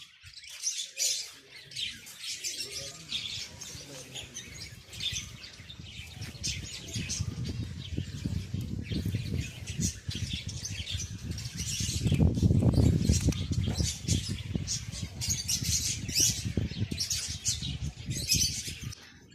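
Budgerigars chirping with many short, high calls throughout. A low fluttering of wings builds about a third of the way in and is loudest around the middle.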